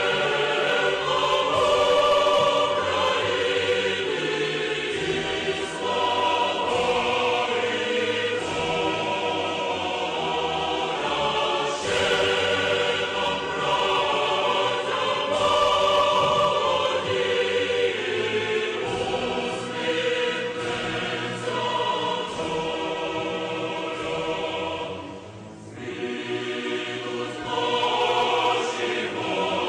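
Background music with a choir singing sustained notes.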